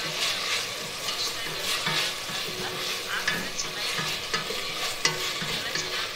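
A wooden spatula stirring onions and tomato frying in a pan, scraping across the pan in repeated irregular strokes over a steady sizzle.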